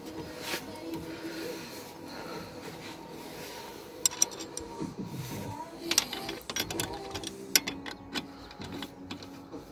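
Open-end wrench clinking against the parking-brake adjuster lock nut on a Linhai 500 ATV's rear brake caliper as the nut is tightened: a scatter of sharp metal clicks from about four seconds in, over a faint steady hum.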